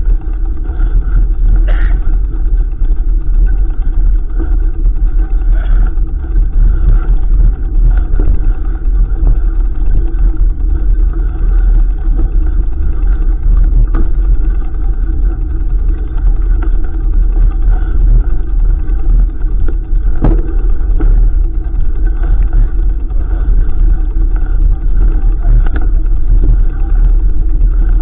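Loud, steady rumble of wind buffeting a camera microphone on a moving mountain bike, with a few sharp knocks from the trail.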